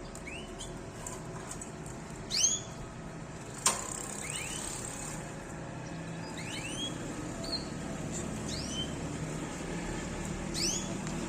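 Canaries giving short chirping calls, in little clusters of quick notes scattered through, with one sharp click a little before four seconds in, over a steady background hiss.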